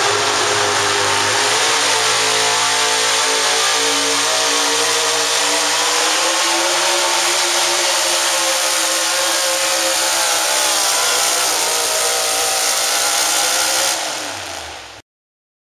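Pro modified four-wheel-drive pulling truck's engine at full throttle under load during a pull, loud and sustained, its pitch rising slightly early on and then holding steady. The sound fades out near the end.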